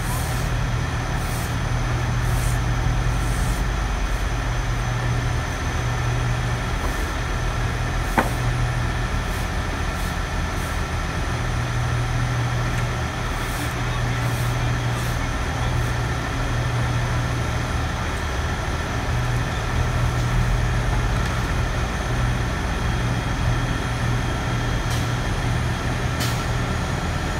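Engine of a truck-mounted crane running steadily as it hoists a load, its low hum swelling and fading every few seconds. A single sharp click sounds about eight seconds in.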